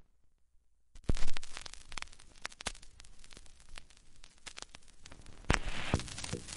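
Crackling sound effect: irregular pops and clicks over a faint hiss. It starts about a second in after silence, with a louder pop at the start, and the hiss grows louder near the end.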